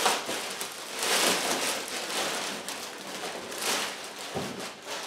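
Clear plastic packaging bag crinkling and rustling in irregular surges as a nylon tactical vest is worked out of it by hand.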